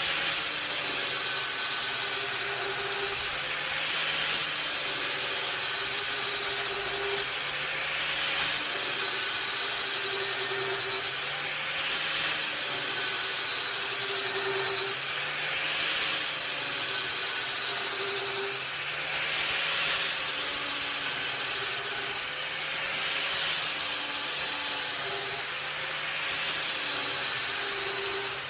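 Angle grinder running in a blade-sharpening jig, its abrasive wheel grinding the cutting edge of a steel lawn mower blade. The grinding swells and eases in repeated passes, about one every three to four seconds.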